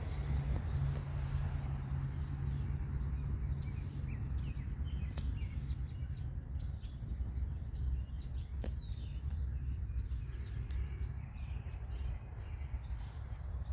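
A steady low rumble with faint, scattered bird chirps above it, and two faint clicks.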